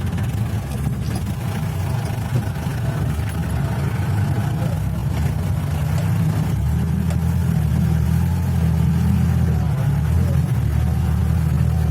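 Motor vehicle engine and road noise: a steady low rumble that grows slightly louder about halfway through.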